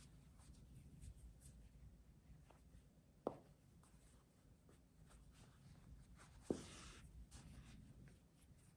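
Faint rubbing and scratching of hands, needle and yarn against a plush velvet-yarn crocheted toy as its head is sewn to the body. Two short sharp clicks break it, about three seconds in and again about six and a half seconds in.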